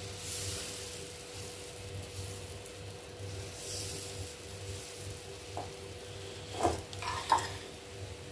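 Ragi dosa batter sizzling faintly on a hot tawa as a steel ladle spreads it round in circles, with a few short sharper sounds about six to seven seconds in.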